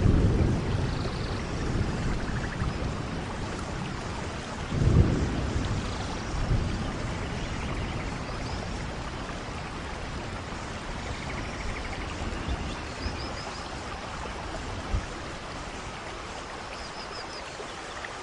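Soft rain falling steadily, with low rumbles of distant thunder near the start and about five seconds in.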